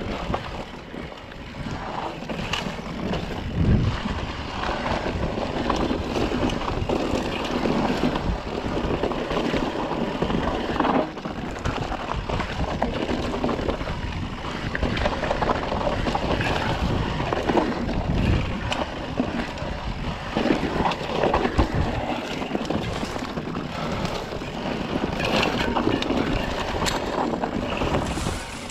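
Electric mountain bike ridden over rough dirt singletrack: wind noise on the microphone, tyres on dirt, and frequent knocks and rattles from the bike over bumps.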